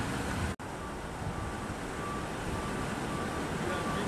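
Steady roadside traffic noise with a low rumble. It cuts out for an instant about half a second in. Afterwards a faint high beep repeats on and off.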